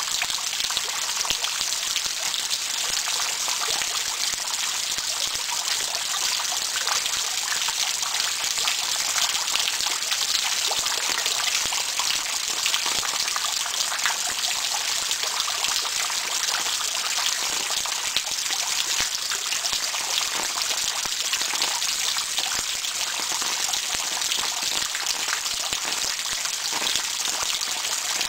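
Steady, heavy rain: a dense, even hiss of many drops falling, with no letup.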